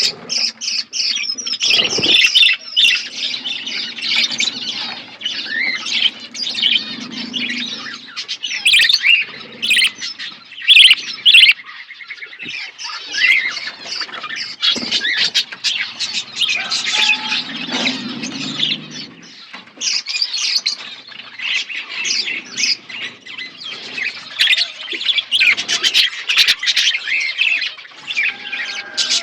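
A flock of budgerigars chirping, many birds calling over one another in a dense, continuous high chatter.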